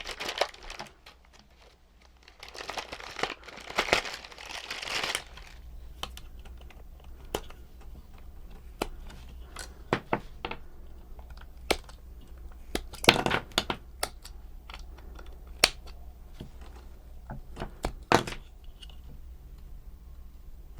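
Plastic parts bags crinkling and being torn open, followed by scattered light clicks and taps of small plastic kit parts being handled.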